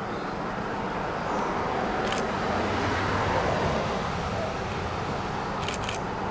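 Steam locomotive, a 1927 Vulcan 0-4-0T saddle tank, working with a steady rush of steam and exhaust that grows slightly louder, with a few short clicks.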